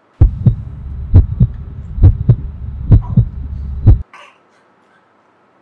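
Heartbeat sound effect: paired lub-dub thumps about once a second over a low throbbing drone, four double beats and a single one, cutting off suddenly about four seconds in.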